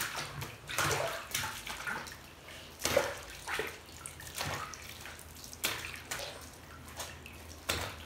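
Bathwater splashing and sloshing as hands wash a puppy in a bathtub, in irregular swishes with the loudest splash about three seconds in.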